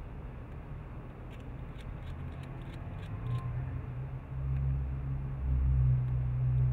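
Low, steady rumble that grows louder about two-thirds of the way in, with a handful of faint clicks in the middle from the BlackBerry Bold's keys and trackball as contacts are searched.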